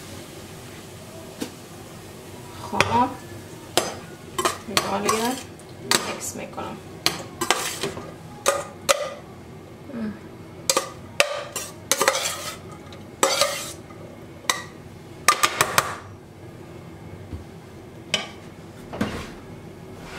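Metal spoon scraping and knocking against a stainless steel saucepan as saffron rice is stirred and scooped: a quick run of scrapes, clinks and short metallic squeals, then a few last knocks near the end.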